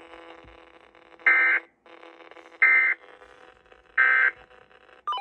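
Emergency Alert System end-of-message data tones over FM radio: three short, identical bursts of buzzing digital data about 1.3 seconds apart, marking the end of the Amber Alert. Faint radio hiss and hum lie beneath.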